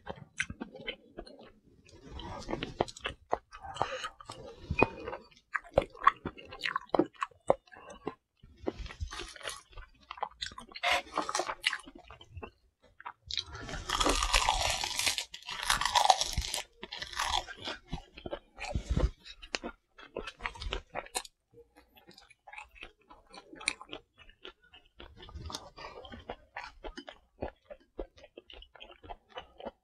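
Close-miked eating: chewing with many small wet clicks and smacks, and a louder crisp crunching stretch from about halfway through as a piece of dried seasoned laver is bitten and chewed.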